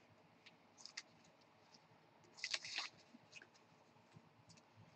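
Near silence with faint handling sounds of a trading card: a few light clicks and a short rustle about two and a half seconds in.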